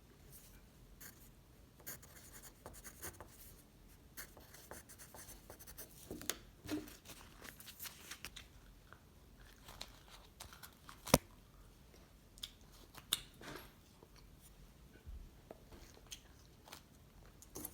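Eating edible imitation tissue paper: faint, scattered crinkling, crackling and chewing sounds, with a sharp click about two-thirds of the way through and a smaller one soon after.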